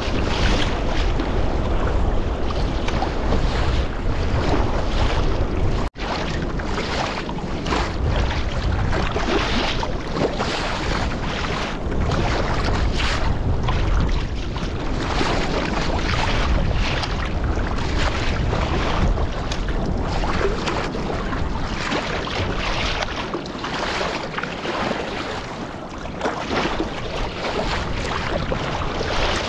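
Wind buffeting the microphone, with choppy sea rushing and splashing against the bow of a sea kayak as it is paddled through the waves. The sound cuts out for an instant about six seconds in.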